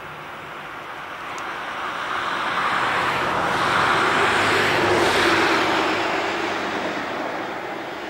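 An unseen vehicle passing by: a rush of noise that swells to a peak about halfway through and fades again.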